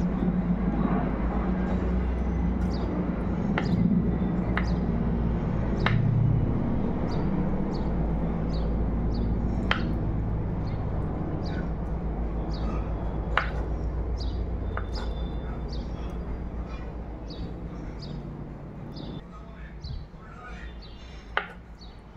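Kitchen knife slicing soft soya dough on a wooden chopping board, with a sharp tap of the blade on the board every few seconds, over a steady low hum that drops away about 19 seconds in.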